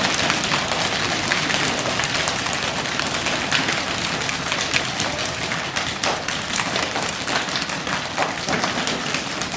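A group of people patting and tapping their partners' backs with open hands all at once: a dense, irregular stream of soft slaps on cloth, like a back massage done by many pairs together.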